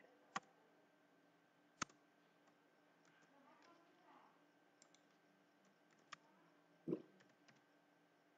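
Near silence broken by a handful of sparse, isolated computer keyboard and mouse clicks as code is typed, the last, about seven seconds in, the fullest.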